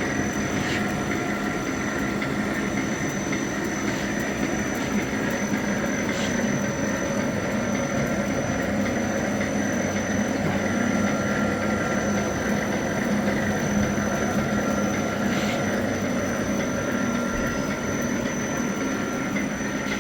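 Packaging-wrapper printing machine running steadily, an even mechanical drone with a constant whine over it.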